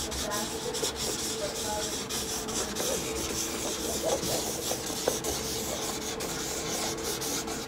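Sharpie marker scratching across a canvas textured with modeling paste as lines are drawn: a continuous scratchy rubbing with many small catches.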